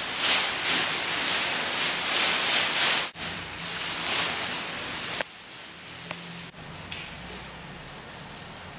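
Dense crackling rustle of a crumpled silver foil sheet shifting. It is loudest for the first three seconds and drops off sharply about five seconds in, leaving a quieter rustle with a few faint clicks.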